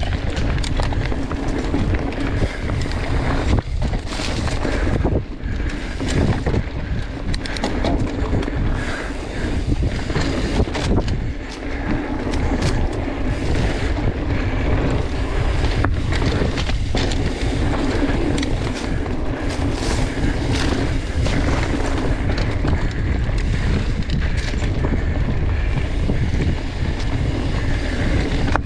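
Mountain bike riding fast down a dirt forest trail: wind rushing over the action camera's microphone, with tyre noise and frequent short rattles and knocks of the bike over bumps.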